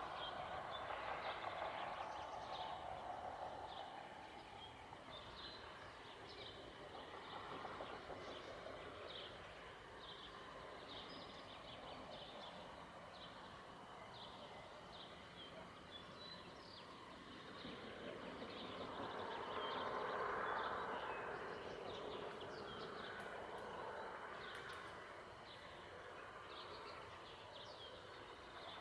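Small birds chirping repeatedly in short, high calls. Under them runs a soft rushing sound that swells near the start and again about two-thirds of the way through.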